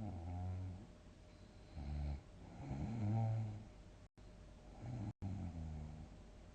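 A person snoring heavily: about four low snores in quick succession, the longest and loudest about three seconds in, with two split-second dropouts in the audio. The snoring then falls quiet near the end.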